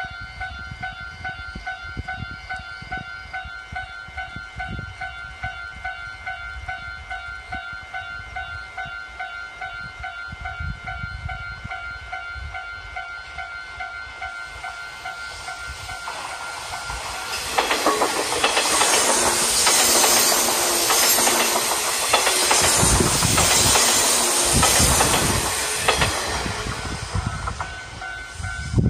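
A JR 185 series electric express train coming up and passing close by at speed. A rising rush of wheels on rail swells from about halfway, then a loud passage of about eight seconds with a rhythmic clickety-clack of wheels over rail joints, fading as the train goes.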